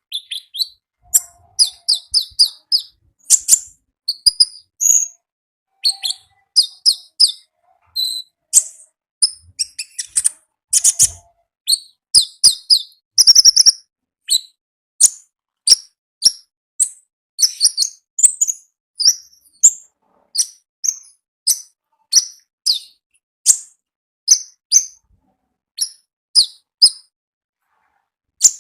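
A konin (kolibri ninja sunbird) singing vigorously: a long run of short, very high, sharp chirps, at first in quick clusters and then as separate notes about one or two a second.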